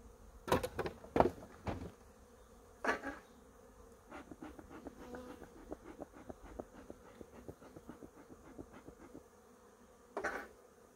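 Honeybees buzzing at an open hive, with sharp knocks from the wooden hive parts being handled, three close together at the start and the loudest about a second in, and a run of small rapid clicks in the middle.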